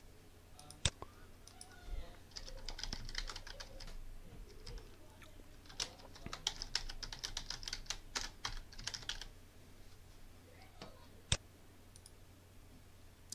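Typing on a computer keyboard: a run of quick keystrokes lasting several seconds. Single mouse clicks come just before the typing and once more near the end.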